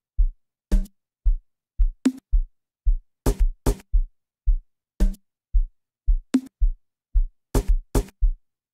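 Unmastered amapiano drum pattern programmed in FL Studio playing back at 112 BPM. A deep kick drum lands on every beat, about twice a second, with sharp clap and percussion hits between the kicks.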